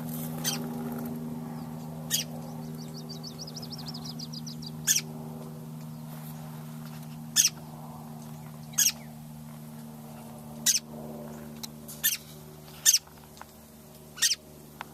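A nesting mother bird giving sharp, short alarm calls that fall in pitch, about ten of them at uneven intervals, with a rapid trill about three seconds in: she is scolding a person near her nest. A steady low hum runs underneath.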